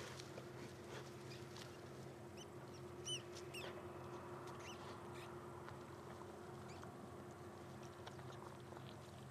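A handful of short, high chirping calls from a small animal, bunched together about two and a half to five seconds in. Under them run a faint low steady hum and scattered soft clicks.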